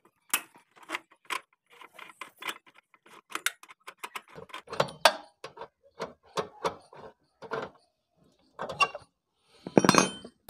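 Repeated metallic clicks and clinks of a socket wrench turning a bolt out of a Honda CD-70 motorcycle's seat stay, several a second, with a louder clatter near the end.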